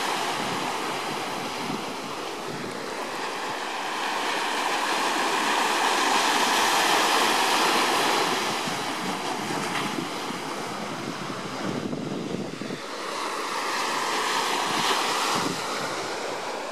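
Small waves breaking and washing up a sandy beach, the surf rising and falling in slow swells about every six to seven seconds.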